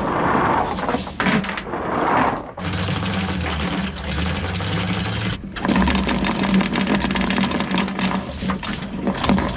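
Anchor windlass running, feeding new anchor chain link by link through its gypsy with a motor hum and a rattle of links. It cuts out briefly and restarts twice.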